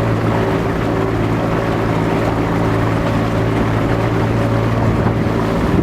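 Motorboat engine running at a steady speed, a constant low drone with wind and water noise over it.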